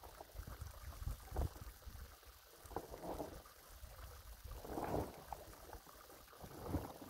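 Wind buffeting the microphone in low, uneven rumbling gusts.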